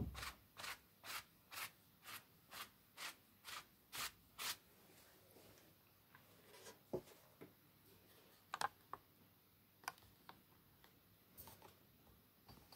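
Faint quick paintbrush strokes scratching on canvas, about two a second for some four seconds, then a few scattered light taps and clicks.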